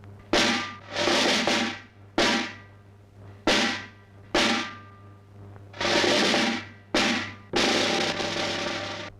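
Percussion in a film score: about eight irregularly spaced drum rolls or cymbal strokes, each starting sharply and fading away, some brief and some lasting about a second, over a steady low hum.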